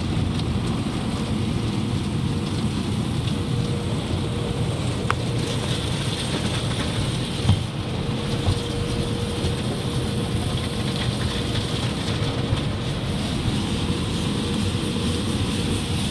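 AVW automatic car wash tunnel heard from inside the car: cloth brushes rubbing and slapping over the wet windshield and body over the steady rumble of the wash machinery. A sharp thump comes about seven and a half seconds in.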